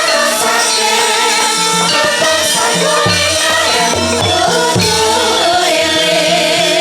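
Live Javanese campursari band music with a singer holding long, wavering notes, and a bass line coming in about a second and a half in.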